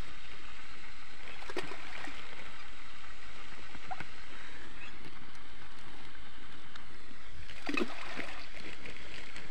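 Lumps of groundbait splashing into canal water, two sharp splashes about a second and a half in and near the end, over a steady rushing background noise.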